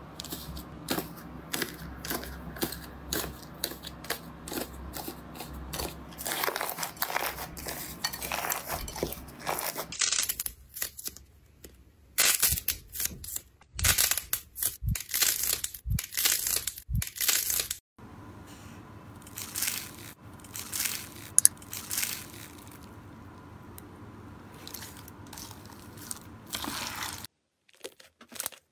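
Slime handled close to the microphone: dense crackling, snapping and tearing as a dried crust is peeled off pink slime and clay-like slimes are pressed and pulled. The texture changes every few seconds as the clips cut, with a louder burst of crisp crackles about halfway through.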